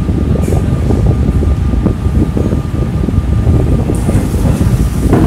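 Loud, uneven low rumble of moving air buffeting the microphone, with a faint steady tone above it.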